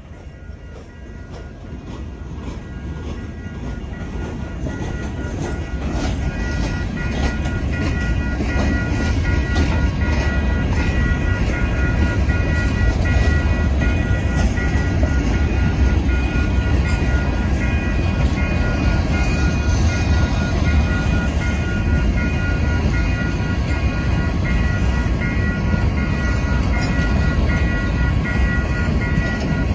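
Freight cars of a Canadian Pacific train rolling through a grade crossing: a loud steady rumble with rapid wheel clatter, growing louder over the first several seconds. A crossing bell rings throughout.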